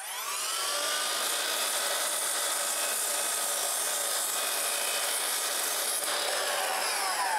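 Makita miter saw starting with a rising whine, running at speed while its blade cuts a small piece of primed molding, then released and winding down with a falling whine from about six seconds in.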